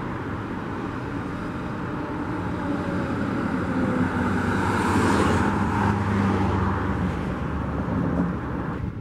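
Road traffic passing close by: cars and trucks going past, with the loudest pass about five seconds in bringing a swell of tyre hiss, over a steady low engine hum.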